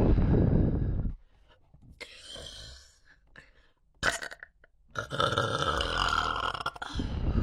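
Deliberate, performed human burps: a deep burp lasting about a second at the start, then a longer drawn-out burp from about five seconds in. A short click falls about four seconds in.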